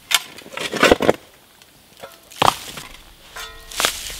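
A pick-mattock striking into stony soil, then a shovel scooping earth and stones: about four sharp strikes with scraping, and a short pause in the middle.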